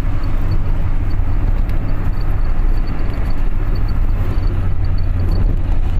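Steady road noise inside a moving car's cabin: an even low rumble from the engine and tyres with a hiss of wind and road over it.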